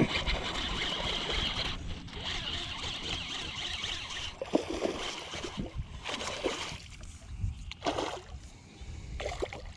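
A hooked largemouth bass being reeled in on a baitcasting reel: a steady high whir of winding in the first few seconds with a short pause, then several short splashes as the fish thrashes at the surface.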